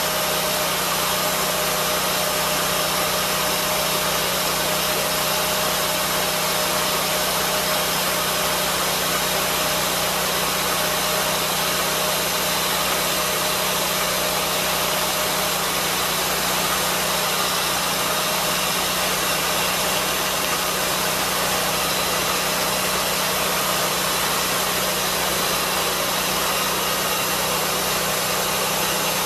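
Lucas swingblade sawmill's engine running steadily at an even pitch, with no change in speed.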